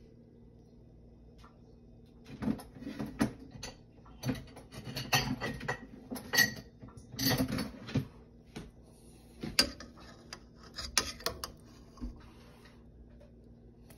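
Irregular clicks and clatter of kitchenware being handled, starting about two seconds in and dying away near the end, over a steady low hum.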